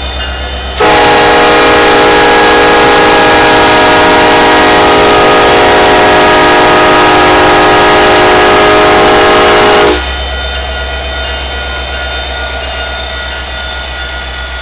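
Diesel locomotive's air horn sounding one very loud blast of about nine seconds, several tones at once, starting about a second in and cutting off sharply. Before and after it, the locomotive's engine idles with a low steady rumble.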